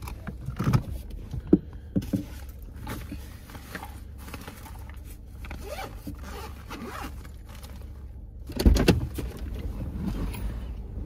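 Handling noises inside a car: small clicks, scrapes and fabric rustles as things are moved about in the driver's seat, with a louder rustle about nine seconds in as a fabric backpack is grabbed. A steady low rumble of the car cabin lies underneath.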